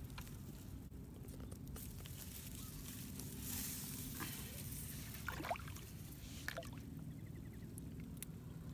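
A steady low motor drone, with light splashing and rustling as hands part grass standing in shallow floodwater, and a few small clicks.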